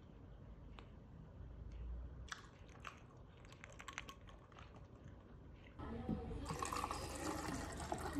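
Faint clicks and clinks of a fork and of ice in a glass, then from about six seconds in, water poured from a plastic bottle into a tall plastic tumbler over ice, a louder, steady splashing fill.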